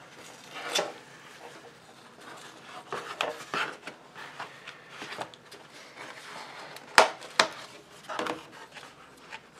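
Blue painter's tape being pulled and peeled from cardboard comic mailer boards, with the cardboard rubbing and scraping as it is handled in short scattered rustles. Two sharp knocks about seven seconds in are the loudest sounds.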